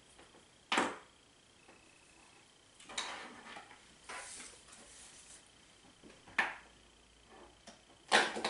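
A few scattered short knocks and clatters of plastic bowls and craft supplies being handled on a tabletop, with quiet between them; the sharpest comes about a second in and another near the end.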